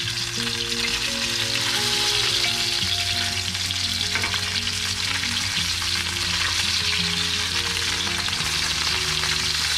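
Floured snapper frying in hot cooking oil in a pan: a steady sizzle.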